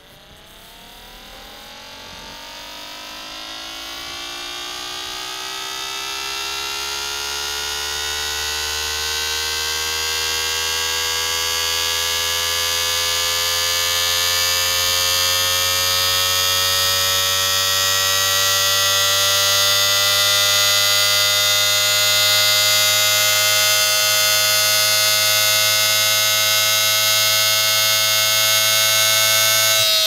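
Homemade six-port siren made from a VCR video head drum, spun by a hard disk drive motor, winding up. Its wail rises in pitch and grows louder over about the first twenty seconds, then holds a steady high tone over a low hum.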